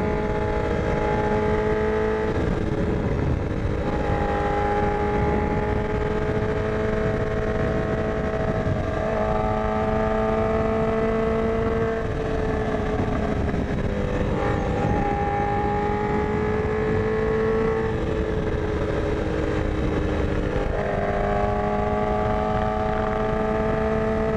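Honda CBR1000RR Fireblade's inline-four engine with a Yoshimura exhaust, running at a steady road speed, its note drifting slightly up and down with a few brief breaks. Wind noise rushes on the onboard microphone underneath.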